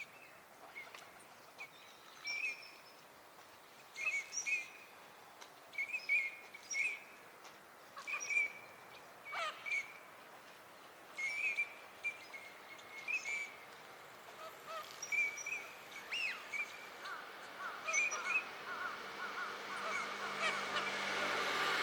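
Eurasian teal drakes giving short, whistled 'krick' calls, repeated every second or two, with a few falling notes among them. Near the end a rising vehicle hum grows underneath.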